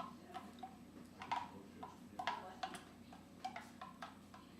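A metal spoon clinking against a bowl in a string of irregular taps, a few a second, each with a brief ring, as batter is scraped and knocked off the spoon into the bowl.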